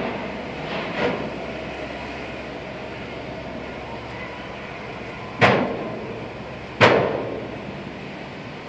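A car driving slowly up a steel ferry boarding ramp, heard from inside the cabin: a steady rumble of road noise with sharp clunks as the tyres cross the ramp's joints, one about a second in and two louder ones about a second and a half apart past the middle.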